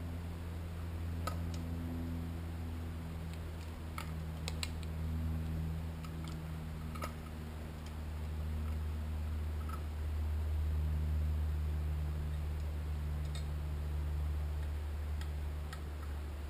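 Scattered light clicks and taps of small metal parts being handled on a Suzuki GSX-R750 cylinder head, about eight in all, over a steady low hum.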